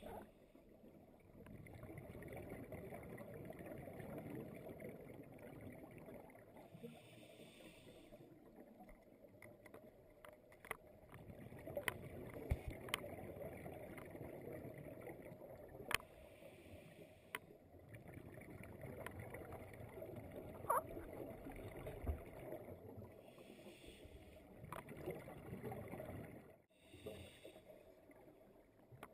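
Muffled underwater sound heard through a camera housing: a scuba diver breathing on a regulator, with hissing bursts of exhaled bubbles every several seconds. A few sharp clicks come through partway in.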